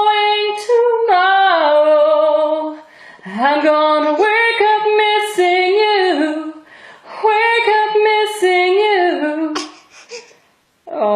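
A woman singing a cappella in long held notes with sliding pitch, in several phrases with short breaths between them. The voice stops near the end.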